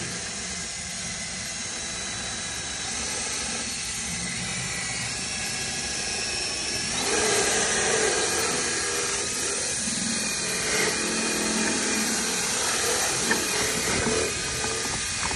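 Cordless drill spinning a round brush attachment against a vinyl car door panel: a steady motor whine with a scrubbing hiss, louder from about seven seconds in.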